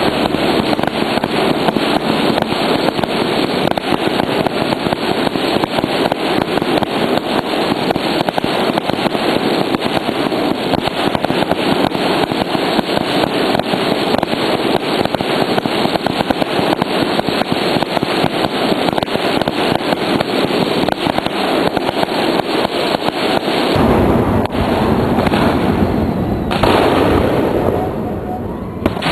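Fireworks display: aerial shells bursting overhead with dense, continuous crackling and popping. The sound changes character about 24 seconds in.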